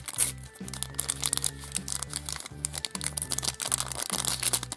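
A small toy packet crinkling and rustling in the hands as it is opened, with many short crackles. Background music with a steady, low-pitched melody plays under it.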